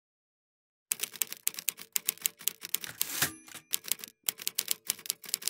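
Typewriter keys clacking in quick succession, starting about a second in, with a few short pauses between runs of strokes.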